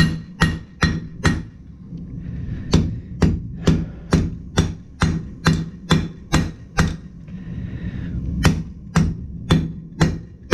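Blacksmith's hand hammer striking hot steel on an anvil, about two blows a second in three runs with brief pauses between, as the stock is drawn out and flattened.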